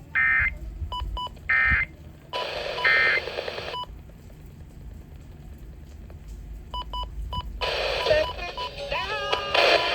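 Emergency Alert System end-of-message data tones: three short warbling digital bursts about a second apart, closing the weather radio's flash flood warning, with a few short beeps. Near the end, radio broadcast audio with music comes in.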